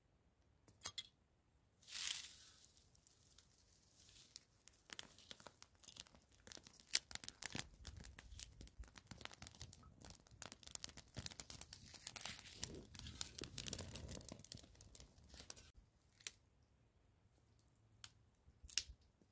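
Dry grass tinder lit by ferro-rod sparks, crackling densely as it burns for about ten seconds, with a low rush under the crackle, then cutting off suddenly; a few sharp clicks before and after.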